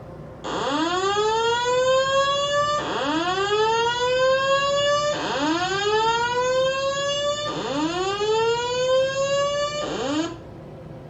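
Building fire-alarm voice-evacuation speaker sounding its whoop alert tone: four loud rising sweeps, each about two seconds long, and a fifth cut off short near the end. It is the alert signal played between recorded announcements that the source of the alarm is being investigated.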